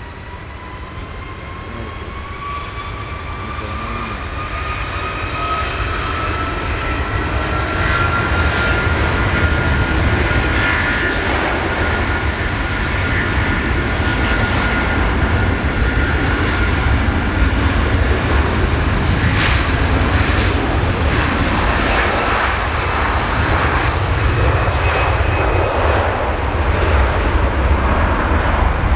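Airbus A330 MRTT's twin Rolls-Royce Trent 772B turbofans at takeoff thrust on the takeoff roll. A fan whine climbs in pitch as the jet spools up and accelerates, and the sound grows louder over the first eight seconds or so, then stays loud as the airliner passes.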